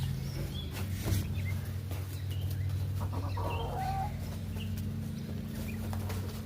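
Backyard hens clucking softly in a few short calls, over a steady low hum.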